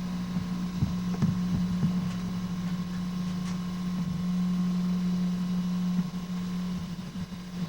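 A steady low electrical-sounding hum, with a fainter higher tone above it and a few soft knocks and handling noises.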